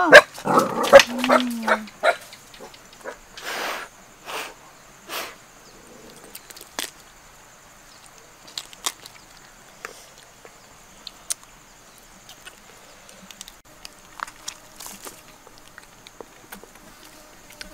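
Close-up eating sounds: a child chewing roasted chicken while the meat is torn apart by hand. A cluster of louder mouth clicks and a short hum comes in the first two seconds, then softer tearing and scattered small clicks.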